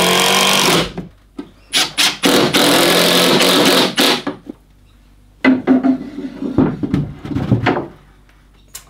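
Cordless drill driver spinning up in bursts as it drives screws through a metal shelf bracket into a plywood wall; the longest run lasts about two seconds. Near the end come a few shorter knocks and scrapes.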